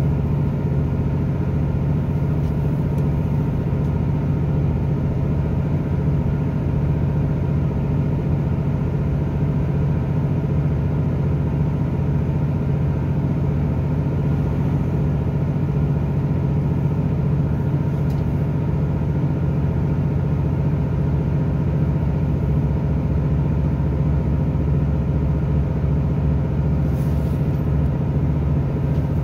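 British Rail Class 166 diesel multiple unit heard from inside the passenger saloon while the train is moving: a steady low drone from its underfloor diesel engine mixed with wheel-on-rail running noise.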